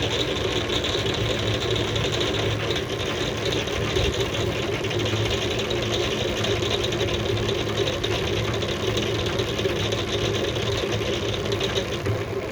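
Honey extractor spinning uncapped frames, a steady mechanical whir over a low hum, with honey being flung off the comb against the drum wall.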